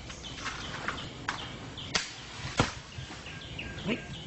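A few sharp cracks and knocks among palm fronds as a coconut-picking monkey works coconuts loose at the top of a coconut palm, with a duller thud near the end. A bird calls in quick, high, repeated chirps, about four a second, early on and again toward the end.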